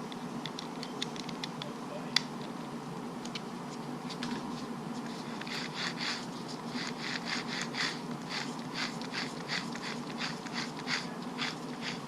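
Small RC truck parts being handled: a sharp click about two seconds in, then a quick, uneven run of small clicks and rustles in the second half, over a steady low hum.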